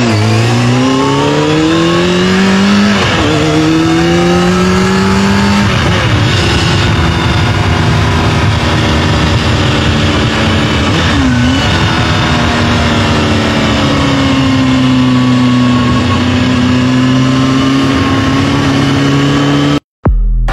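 Motorcycle engine accelerating through the gears: its pitch climbs and drops sharply at each shift, twice in the first six seconds. It then runs at high revs, dipping briefly a few times, and cuts off suddenly near the end.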